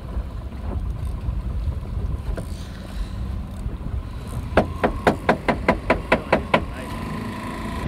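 Fishing reel clicking, about five clicks a second for some two seconds in the second half, as a hooked fish is fought on a bent rod. Under it is the steady low rumble of the boat's motor and water.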